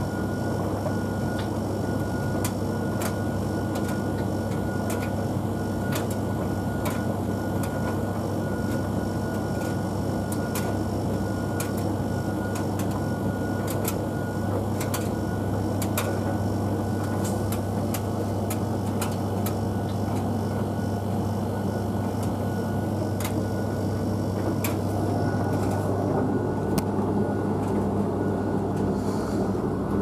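A tumble dryer running mid-cycle, its drum turning a load of clothes with a steady hum and whir and scattered light clicks. It grows a little louder near the end.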